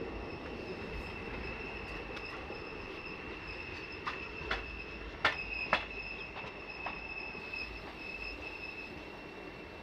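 Passenger train running along the track, heard from an open coach doorway: steady rolling noise with a continuous high-pitched wheel squeal. There are five sharp clicks from the wheels over the track between about four and seven seconds in.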